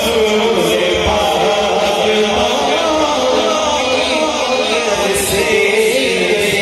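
Male voice singing a naat through a microphone and loudspeaker, drawing out long wavering notes without clear words.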